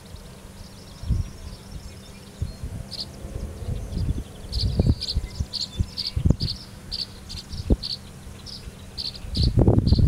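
Cricket chirping in short high pulses about twice a second, starting about three seconds in. Low rumbles and thumps run underneath and grow loud near the end.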